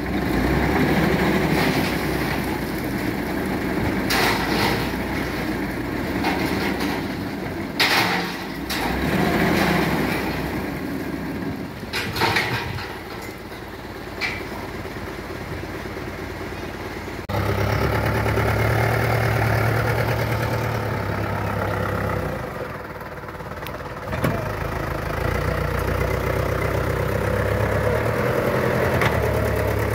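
Old dump truck engine running under load while the tipper bed is raised, with several sharp clanks in the first half. About halfway through the sound changes abruptly to a steady, even engine hum that eases off briefly and then picks up again.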